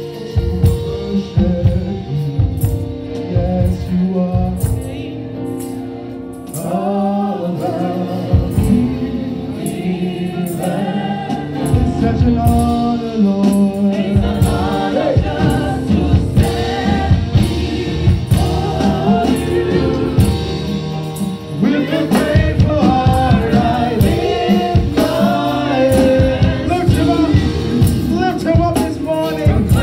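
A gospel worship song sung by a lead singer and a backing choir over band accompaniment with drums, continuous and loud; the music dips briefly about six seconds in and swells again after about twenty-two seconds.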